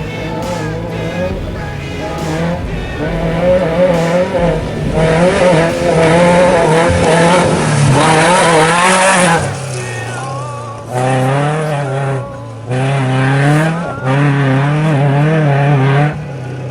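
Off-road race truck engine running at high revs, its pitch wavering up and down constantly. About halfway through the pitch drops lower, and the sound breaks off and comes back several times.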